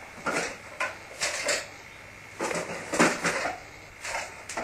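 Dishes and cutlery clattering at a kitchen sink, an irregular string of short knocks and clinks.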